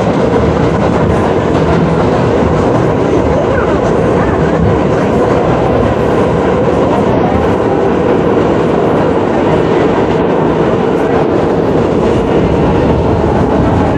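R62A subway car running on the line, heard on board: steady wheel-on-rail running noise with an even hum underneath, the weird humming noise of this car.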